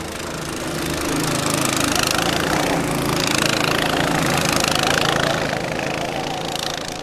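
Rallycart's small engine running under throttle as the kart drives past close by. It grows louder over the first second or two, stays loudest through the middle, then fades away.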